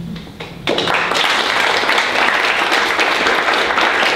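Audience and panel applauding. A few scattered claps open it, then dense applause starts suddenly under a second in and holds steady.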